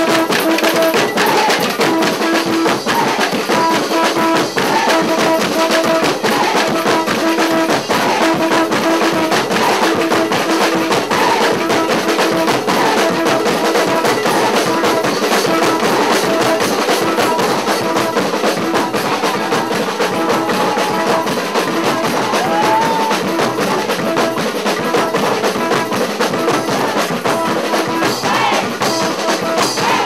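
Live carnival percussion: hand drums and knocking percussion playing a fast, dense beat, with a held note repeated in short pulses over it.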